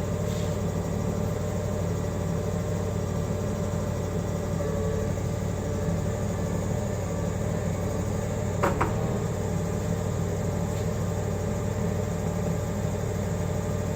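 Forklift engine idling steadily, with one short sharp knock about nine seconds in.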